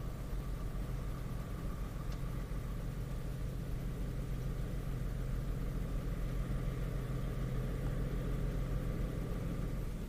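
Steady low engine hum, a little stronger in the second half, with a faint steady high-pitched tone running under it.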